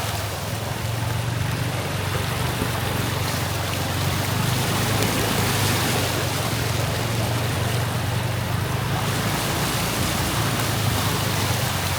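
Steady rushing noise of heavy rain and water, with a steady low motor hum underneath.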